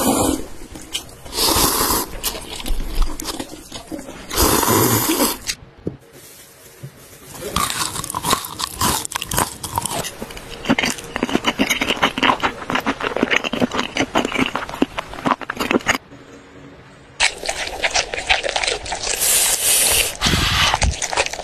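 Close-miked eating sounds: noodles eaten in two short bursts early on, then a long run of fast crisp crunching as Orleans-marinated fried food is bitten and chewed, then more chewing of a spicy twisted snack near the end.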